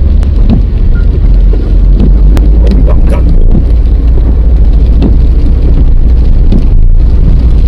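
Loud, steady low rumble of a vehicle on the move.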